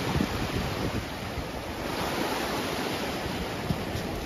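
Surf washing onto a stony shore, a steady rush of sea, with wind gusting on the microphone.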